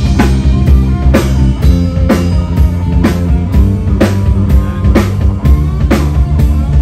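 Live band playing an instrumental with a steady drum-kit beat, about two hits a second, over electric guitar, keyboard and a sustained bass line.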